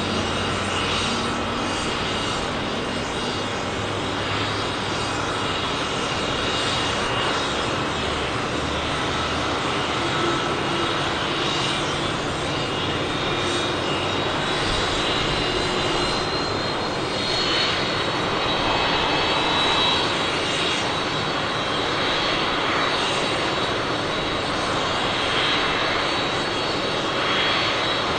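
Jet engines of a Boeing 747-400D running steadily, a continuous noise with a high whine that rises slightly in pitch about halfway through.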